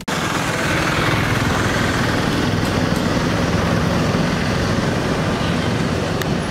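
Steady street traffic noise with a low engine hum underneath.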